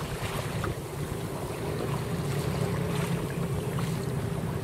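Wind buffeting the microphone over water washing and splashing along the hull of a sail-driven kayak. The sound is a steady rumble with small splashes.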